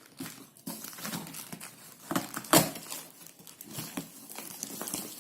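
Cardboard shipping carton and its packing being handled and opened by hand: irregular crinkling and rustling, with one sharp, louder crackle about two and a half seconds in.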